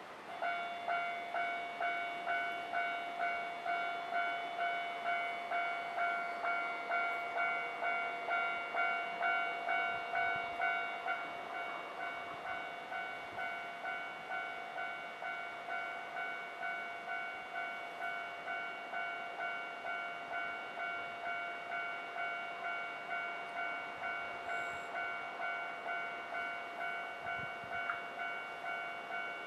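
Japanese railway level-crossing electronic warning bell starting up suddenly and ringing in a steady pulsing ding-ding, about two strikes a second. It drops a little in loudness about twelve seconds in and keeps ringing.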